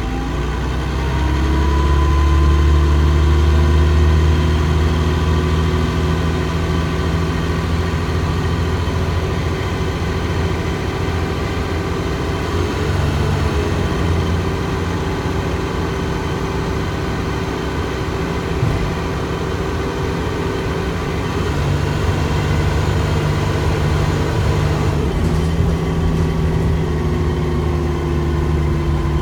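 Dennis Trident 2 double-decker bus heard from inside the passenger saloon: its diesel engine and driveline run with a steady hum and a whine. The pitch rises over the first couple of seconds as the bus pulls away, then holds steady, with shifts in pitch about halfway through and again later on.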